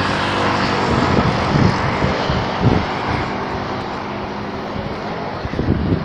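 A steady engine drone with a broad rushing noise that swells over the first second or two and then eases off.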